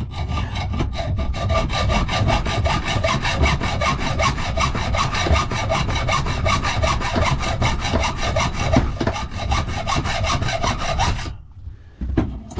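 Hand saw, most likely a hacksaw, cutting through a metal safe-key blank with regular back-and-forth strokes. It is taking off the surplus metal by hand so the key machine's cutter is spared. The sawing stops about 11 seconds in.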